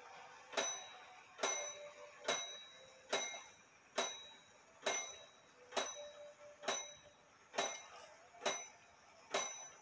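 Double-fusee drop dial clock striking the hour on its gong: eleven evenly spaced strokes, a little under one a second, each ringing briefly and fading before the next. The strike count shows where the hour hand has to be set.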